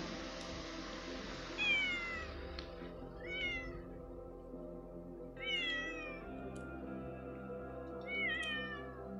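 A cat meowing four times, each meow sliding down in pitch, over soft background music with steady held notes.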